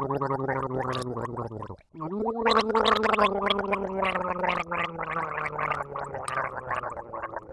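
A person gargling: a long voiced gargle, a brief pause for breath about two seconds in, then a second gargle that starts a little higher, slowly drops in pitch and fades near the end.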